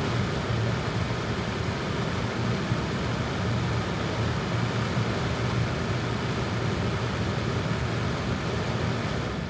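Steady wind noise from a floor fan on high blowing at an NTG-3 shotgun microphone in a blimp windshield, cleaned up in editing: a low rumble under an even hiss.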